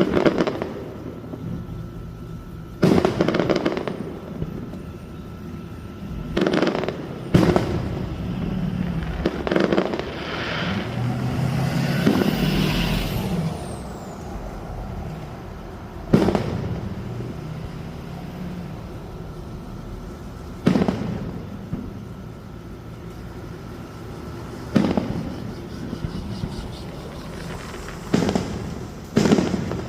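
Fireworks display: aerial shells bursting with sharp bangs every few seconds, some in quick pairs. A stretch of crackling and a faint falling whistle comes near the middle.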